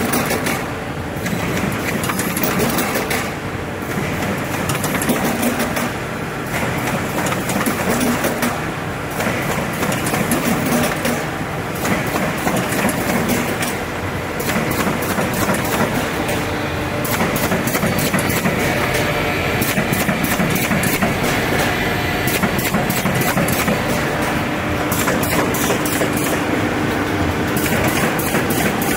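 Automatic corrugated cardboard partition assembly machine running: continuous mechanical clatter with many rapid clicks and knocks.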